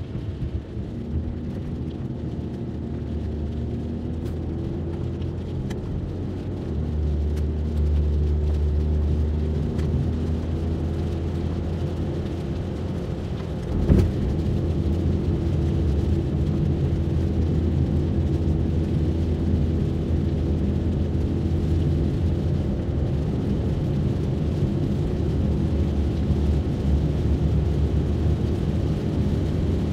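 Road noise inside a moving car's cabin on a wet road: a steady low engine and tyre drone that gets louder about seven seconds in, with one brief thump about fourteen seconds in.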